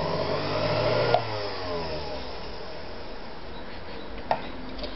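Electric motor of a Privileg Combi Super Automatic 580 sewing machine running on the foot pedal, speeding up for about a second, then a click and the motor winding down over the next second. Two sharp clicks come near the end.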